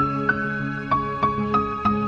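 Background music: a gentle new-age melody of single notes, about three a second, over held chords.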